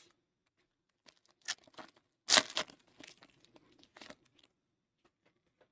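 Foil trading-card pack wrapper being torn open and crinkled: a run of short crackly rips, with the loudest tear about two and a half seconds in.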